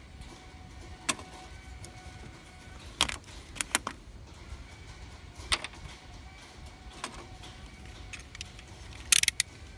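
Scattered sharp clicks and taps, about eight over the stretch, with a brighter cluster near the end, from handling a new engine oil can as it is opened and its foil seal pierced.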